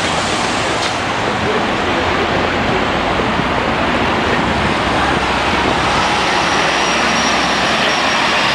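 City buses passing close by in street traffic: bus engines running with road and tyre noise, and a steady high whine joining about six seconds in.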